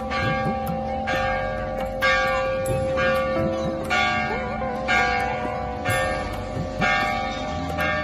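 Temple bell struck about once a second, each ring hanging on and overlapping the next over a steady ringing hum.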